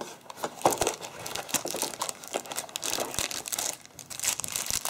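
Packaging handled by hand: a cardboard phone box is opened with a few sharp clicks, then a handset in a clear plastic bag is lifted out with steady crinkling.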